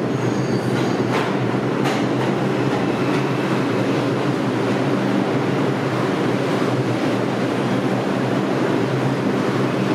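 R142 subway train pulling into an underground station and slowing along the platform: a steady rumble of wheels on rail and motor hum, with two sharp clacks about one and two seconds in.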